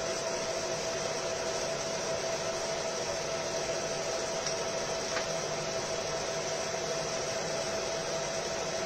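Fiber laser marking machine running during engraving: a steady fan-like whir with a constant mid-pitched whine, unchanging throughout.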